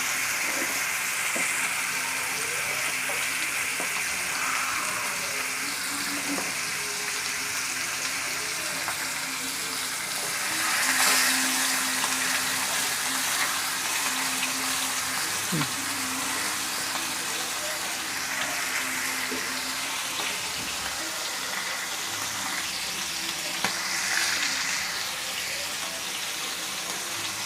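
Marinated chicken leg pieces sizzling in oil in a kadai on high flame: a steady frying hiss that swells briefly about eleven seconds in.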